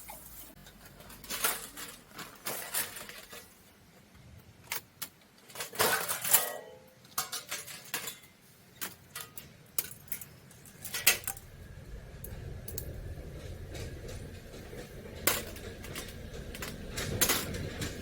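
Irregular clinks and knocks of camping gear being handled, small hard items clattering against each other. A steady low rumble sets in about two thirds of the way through.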